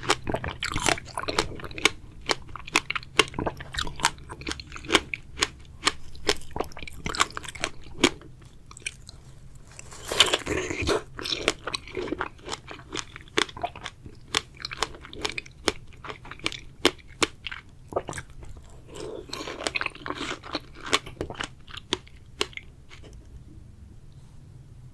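Close-miked eating of strawberries: wet chewing with many sharp mouth clicks and crunches. There is a louder bite about ten seconds in and another burst of chewing near twenty seconds, then it quiets near the end.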